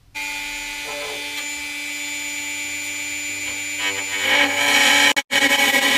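High-speed rotary tool with a small cut-off disc starting up and running with a steady whine, then cutting into the fuel tank strap, louder and coarser from about four seconds in. The sound cuts out for an instant just after five seconds, then carries on.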